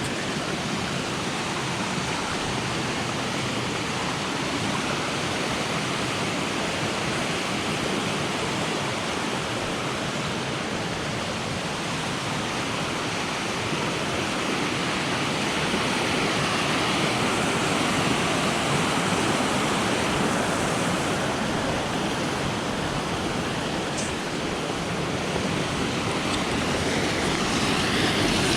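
Steady rush of a waterfall, water cascading down over rock, growing a little louder toward the end.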